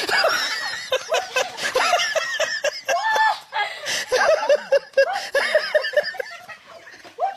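People laughing hard in rapid, repeated bursts.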